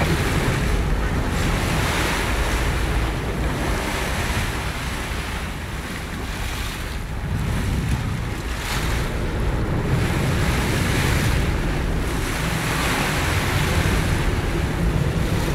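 Wind buffeting the microphone over the wash of open-ocean waves, rising and falling in slow swells, with a steady low rumble underneath.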